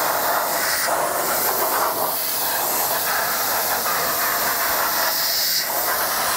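Pressure-washer jet from a 40-degree fan nozzle blasting against a steel wheel and tyre: a steady loud hiss of water spray whose tone keeps shifting as the jet moves over the rim.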